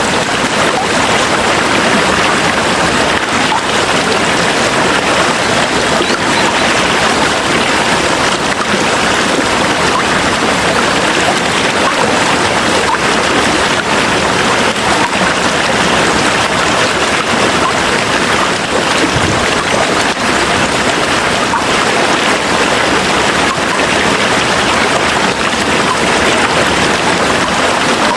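Steady heavy rain falling, a dense, even hiss of drops.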